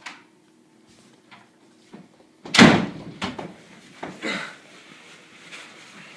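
A loud slam about two and a half seconds in, followed by a few lighter knocks.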